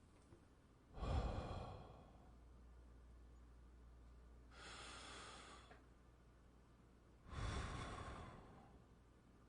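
Slow, deep breathing close to the microphone, one breath at a time. A heavy exhale about a second in, with air buffeting the mic, then a lighter airy inhale midway, then another heavy exhale near the end.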